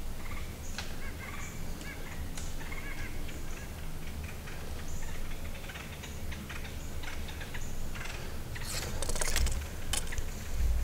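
Short bird calls and chirps repeating through the woods, with a burst of rustling in dry leaves near the end.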